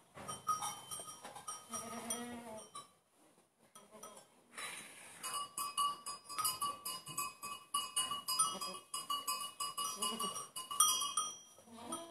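A goat gives a short, low call about two seconds in. From about five seconds in, a small metal collar bell jingles quickly and steadily for several seconds.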